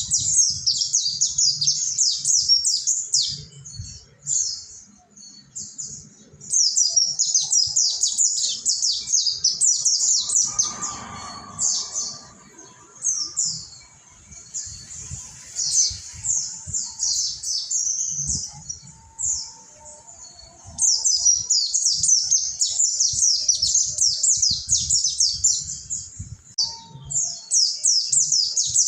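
Mountain white-eye (pleci monty) singing a fast, high twittering song in long rapid phrases, breaking off briefly about four seconds in and going sparser and quieter from about ten to twenty seconds before the full song resumes.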